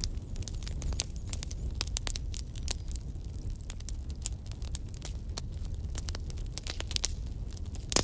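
Wood fire burning in a fireplace: dense, irregular crackles and pops over a low, steady rush.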